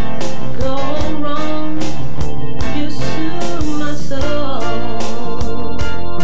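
Gospel song playing: a steady drum beat of about two and a half hits a second under guitar and a gliding melody line.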